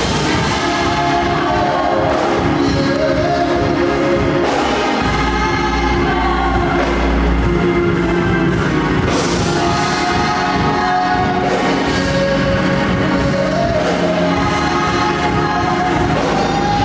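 Gospel worship music: a choir or worship team singing over a live band with drums and bass.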